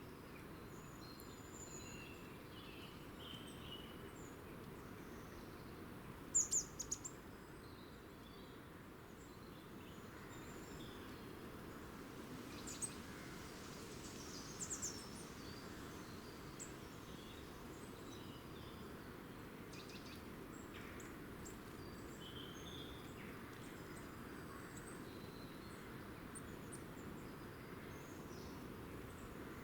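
Scattered short, high-pitched bird chirps over a steady background hiss. The loudest are a quick run of three about six seconds in, with another pair about halfway through.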